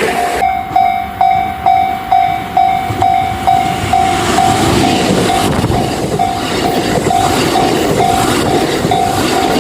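Japanese railway level-crossing warning bell ringing, a repeated clanging tone about twice a second, while a train runs past on the rails, its rumble growing from about halfway through.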